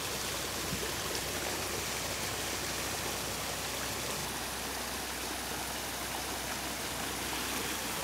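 Water running steadily over small stone spillways and splashing into shallow pools of a backyard disappearing-waterfall stream.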